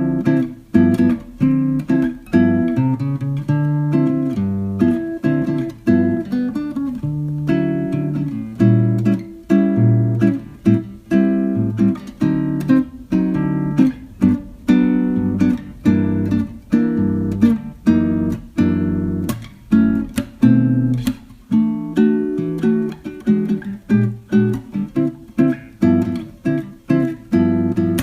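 Acoustic guitar music, plucked and strummed in a steady rhythm.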